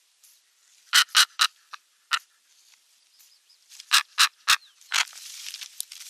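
A crow cawing: two runs of short, harsh caws, about five and then four in quick succession, a couple of seconds apart. A steady rustling hiss sets in near the end.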